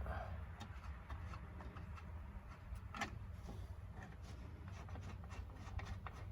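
Faint, scattered light clicks of hand work with a socket wrench on the tail light's 10 mm bolts, with one sharper click about three seconds in, over a low rumble.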